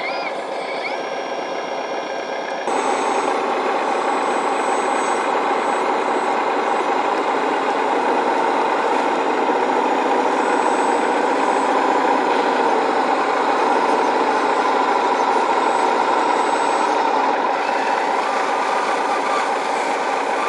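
A 1/14-scale hydraulic RC construction machine running steadily as it works. It gets louder about three seconds in, then holds.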